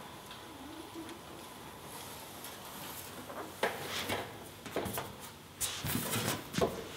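A thin 3003 aluminum sheet being worked through a hand-cranked bead roller: scattered light taps, rustles and wobbles of the panel, getting busier over the last few seconds.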